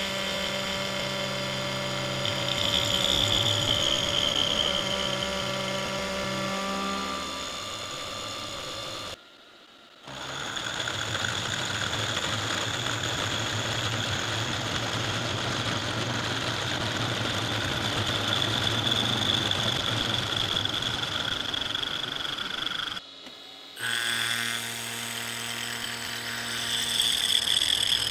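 Milling machine running with a face mill cutting across a metal plate clamped in a vise: a steady machining whine with a high ringing tone. The sound drops away briefly twice, about nine and twenty-three seconds in.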